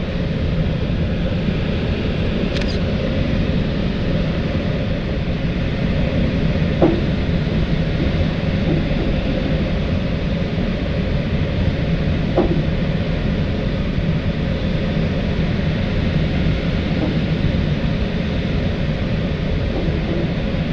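Steady rush of airflow over an L-23 Blaník glider's canopy and fuselage in flight, heard inside the cockpit. Two faint knocks come about 7 and 12 seconds in.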